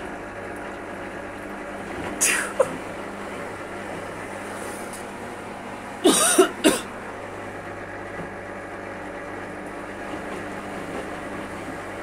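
Indesit front-loading washing machine running a wash, a steady hum with the towel and water turning in the drum. It is broken by a short sharp noise about two seconds in and a louder cluster of sharp noises around six seconds in.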